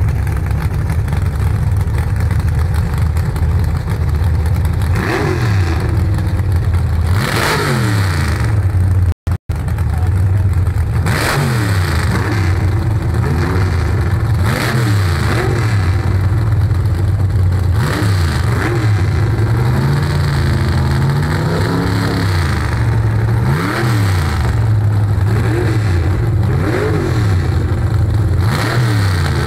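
Dragster engine idling loud and lumpy, then blipped again and again from about five seconds in, each rev shooting up and dropping straight back, with one longer, slower rev near the middle. The recording cuts out for a split second a little after nine seconds.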